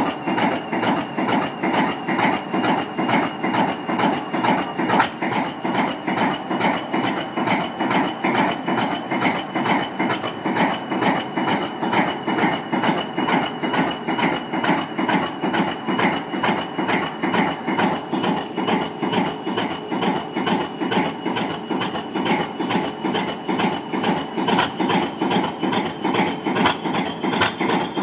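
Class 20 diesel locomotive's English Electric 8SVT V8 engine idling just after a cold start, its exhaust heavy with smoke. It has an even, rhythmic exhaust beat and a steady high turbocharger whistle that rises slightly near the end.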